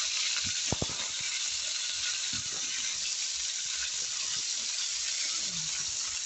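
Cauliflower florets sizzling in hot oil in a metal kadai: a steady frying hiss, with a few short knocks against the pan, loudest about a second in, as florets go in and are stirred.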